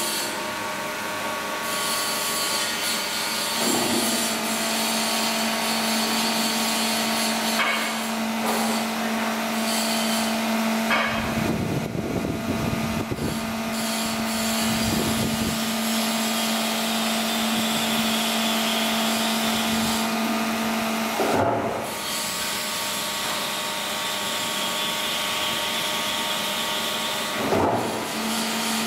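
Plate rolling machine running, its rolls turning a 10 mm steel plate back and forth to bend it into a pipe: a steady mechanical hum with a held low drone, broken a few times by short bursts of noise.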